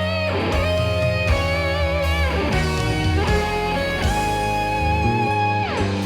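Instrumental break in a band-backed pop ballad: an electric guitar plays a held, vibrato-laden melody over the band, ending on a note that slides down in pitch.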